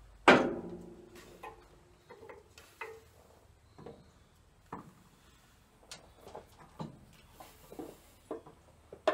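A sharp metallic clank that rings briefly, followed by scattered light knocks and clicks: cast-metal water pump parts being handled and fitted against a tractor engine.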